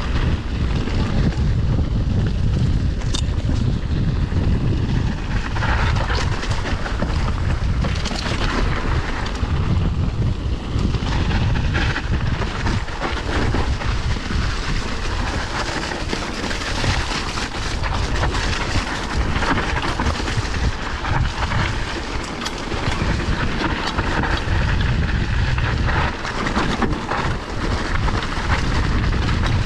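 Wind rumbling on the microphone and mountain-bike tyres on a dirt trail during a fast descent, with scattered knocks and rattles from the bike over rough ground.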